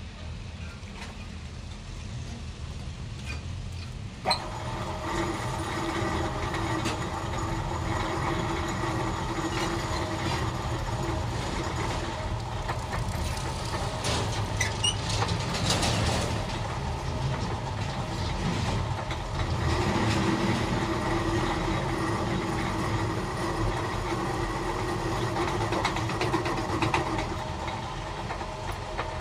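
Belt-driven metal lathe running with a steady low hum. About four seconds in there is a sharp click, and the sound gets louder, with a steady whine over the hum as the chuck turns the workpiece.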